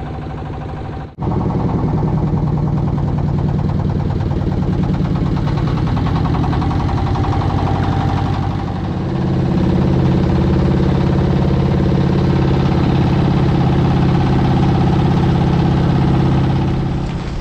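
Engine of a wooden motorboat running steadily under way. It drops out for an instant about a second in and comes back louder.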